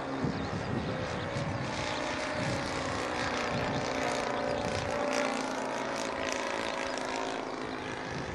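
Kyosho CAP 232 radio-controlled model aerobatic plane flying overhead, its motor and propeller buzzing steadily, the note wavering a little as it manoeuvres.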